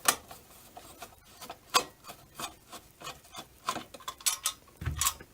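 Screws being backed out with a Phillips screwdriver and the headlight's plastic projector assembly being handled: irregular sharp clicks and knocks with light rubbing in between.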